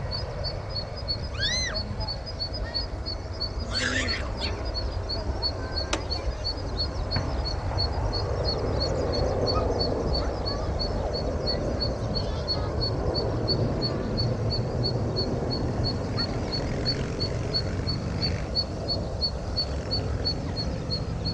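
Airbus A320-214's CFM56-5B jet engines at takeoff thrust, a steady low rumble as the airliner climbs away. Over it a faint high chirp repeats about four times a second, with a short call about a second and a half in.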